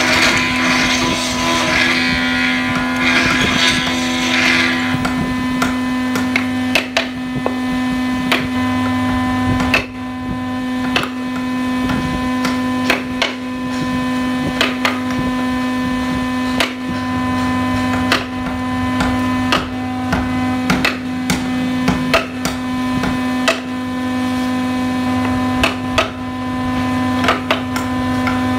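Hand wood-carving chisel cutting a floral relief into a hardwood board: a string of sharp, irregular taps and clicks about once a second, over a steady hum.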